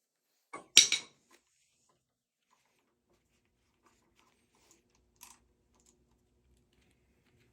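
A brief clatter of a few sharp knocks about a second in, like a tool or metal part being handled and set down during the motorcycle's disassembly, then a single faint click near the middle; otherwise quiet.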